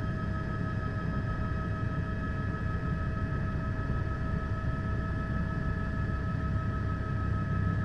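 Steady helicopter noise: a constant low rotor rumble with an unchanging whine above it.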